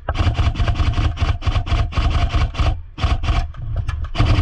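Airsoft electric rifle firing fast strings of shots, several a second, with short pauses about three seconds in and again just before the end.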